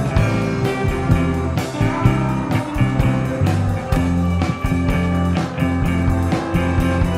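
Rock music soundtrack with guitar over a steady bass line and a regular beat.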